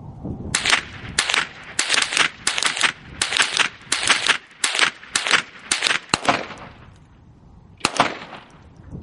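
A rapid string of about a dozen gunshots, roughly two a second, from a mix of 12-gauge shotguns and .22 LR rifles. A pause follows, then one more shot near the end.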